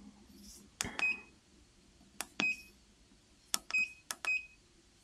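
Keypad of a CNC cutting-table control unit being pressed: four key presses, each a click followed by a short high beep, about a second apart.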